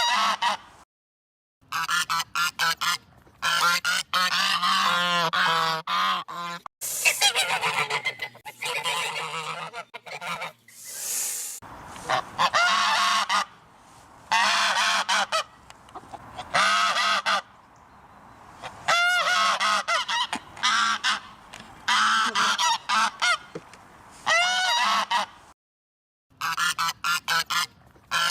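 Geese honking, many loud calls in quick runs that overlap, with short pauses between the runs and two brief total dropouts.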